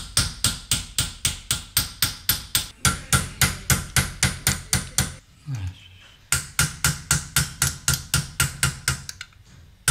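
Chasing hammer striking a chasing tool on silver plate set in hard chaser's pitch, fast even taps about five a second. The taps pause about five seconds in, resume about a second later and stop shortly before the end. This is the chasing stage, refining the repoussé relief to fine detail.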